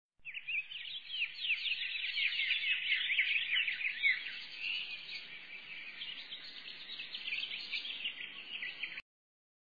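Dense, high-pitched chirping, many quick chirps a second, which cuts off abruptly about nine seconds in.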